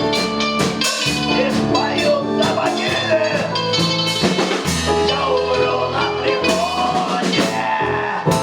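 Live rock band playing a song: drum kit, guitar and bass with singing.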